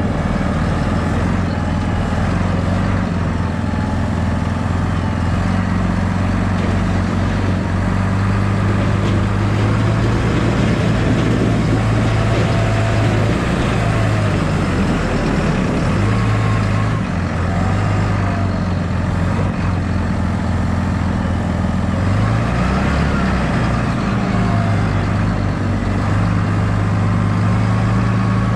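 Valtra T174D tractor's diesel engine running steadily under way, its speed dipping and rising a few times.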